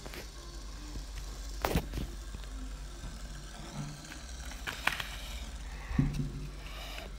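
A plastic fidget spinner spinning on a wooden table and being handled: a few sharp knocks and taps over a steady low hum, the loudest knock about six seconds in as the plastic packaging is picked up.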